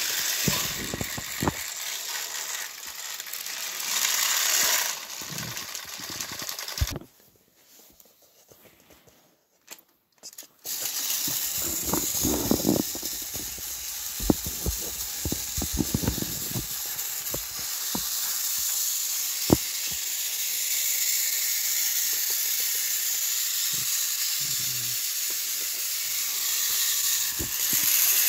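Battery-powered Thomas & Friends toy engines running along plastic track: a steady whirring hiss of their small motors, with scattered clicks and rattles of the wheels. The sound drops almost to silence for about three seconds partway through, then resumes.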